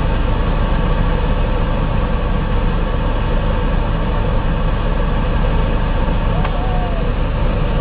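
Heavy military vehicle's engine running steadily with a deep, even drone, heard from on board as the vehicle drives along.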